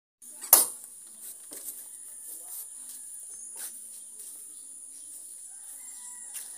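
A steady high-pitched insect drone with a sharp knock about half a second in and a few faint taps.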